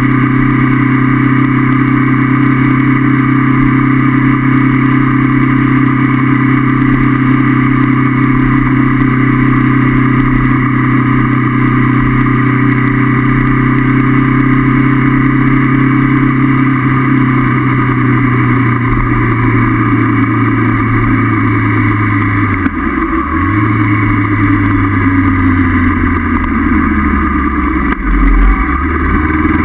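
Honda CB500F parallel-twin engine running at steady cruising revs, then easing off with the pitch sinking slowly. The revs dip sharply and climb again about two-thirds of the way through, and once more near the end.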